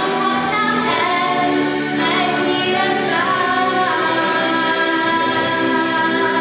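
A young woman singing a slow solo song, holding long notes, with music behind her.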